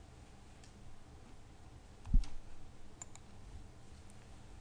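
A few faint clicks at a computer, one of them a quick double click, as the slides are advanced. About two seconds in there is one short, dull low thump, the loudest sound here.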